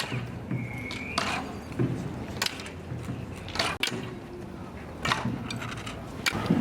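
Wooden horquetas, the forked staffs of procession bearers, knocked one after another on the street pavement in irregular knocks. A brief high whistle-like tone sounds just under a second in.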